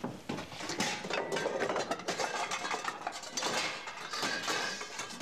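Metal pots and pans clanking against each other as they are rummaged through in a low kitchen cupboard, in a quick irregular clatter.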